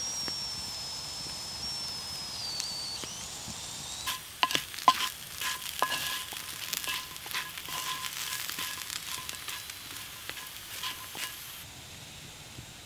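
Cubed potatoes sizzling as they fry in suet in a cast iron skillet over a campfire. A thin whistle falls slowly in pitch over the first few seconds. From about four seconds in, a utensil scrapes and clinks against the skillet as the potatoes are turned, the pan ringing briefly with each knock, until near the end.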